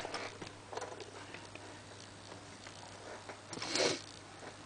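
Faint handling noises: small scattered clicks and rustles over a low steady hum, with a short breathy hiss about three and a half seconds in.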